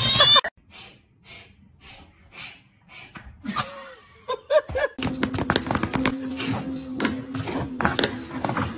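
A man laughing, soft and breathy at first, then louder from about halfway. It follows a brief, loud, high-pitched cry right at the start.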